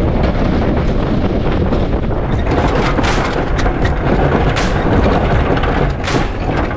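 Pickup truck with a Fisher snowplow pushing heavy wet snow: steady engine and rushing rumble of snow and wind on the microphone, with scattered sharp knocks starting about two seconds in.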